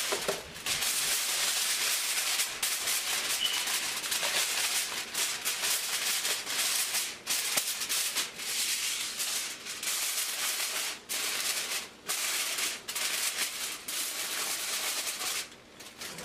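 Aluminium foil crinkling and rustling as a sheet is spread over a large pot of rice and crumpled down around its rim, with a few short pauses. The pot is being sealed so the rice can finish cooking in its own steam.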